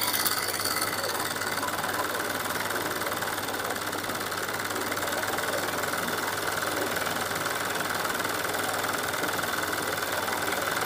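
Electric sewing machine running fast and steadily while doing free-motion embroidery, its needle rapidly stitching a dense satin-stitch line into cloth held in a hoop.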